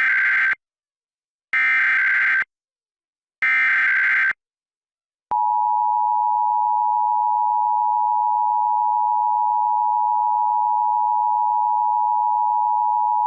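Emergency Alert System test transmission: three bursts of SAME header data, each about a second long, then after a short gap the two-tone EAS attention signal held steadily for about eight seconds.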